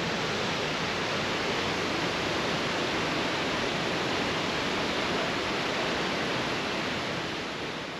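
Steady rushing of a waterfall, Los Mellizos falls, a constant hiss of falling water easing slightly near the end.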